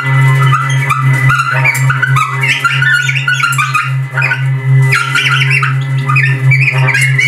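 Free-improvised duo of baritone saxophone and contact-miked acoustic laptop: a steady, pulsing low drone under rapid, squeaky, chirping high fragments that flutter and break off every fraction of a second.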